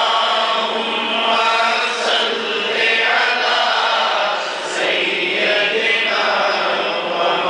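A man chanting a naat, an Islamic devotional song in praise of the Prophet Muhammad, in a continuous sung recitation.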